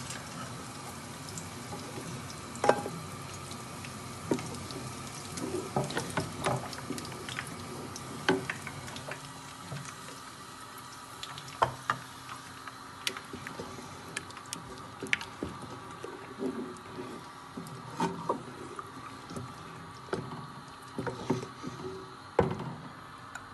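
Thick hareesa being stirred with a wooden spoon in an aluminium pot, just after the hot ghee tempering went in. Irregular knocks and clicks of the spoon against the pot sound over a steady low hiss.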